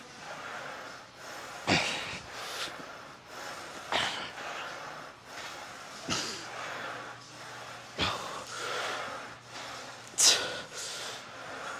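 A lifter's sharp, forceful breaths, five of them about two seconds apart, one with each rep of a Smith machine incline bench press.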